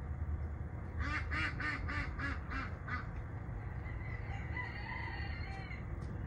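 Farmyard fowl calling: about a second in, a duck quacks a quick run of about eight calls, roughly four a second, growing fainter, then a rooster crows once for about a second and a half. A steady low rumble runs underneath.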